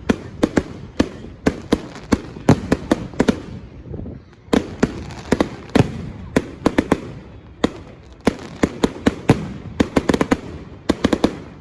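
Fireworks display: a rapid, irregular barrage of sharp bangs, often several in quick succession, with a brief lull about four seconds in.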